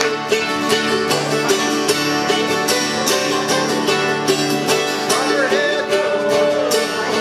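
Mandolin and acoustic guitar playing together in a steady, strummed bluegrass-style rhythm, with a voice singing a line over it about five seconds in.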